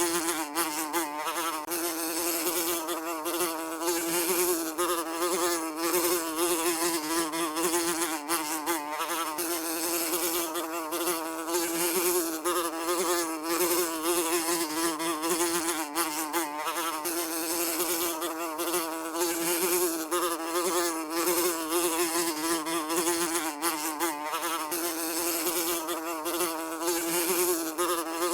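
Housefly buzzing continuously, its drone wavering slightly in pitch.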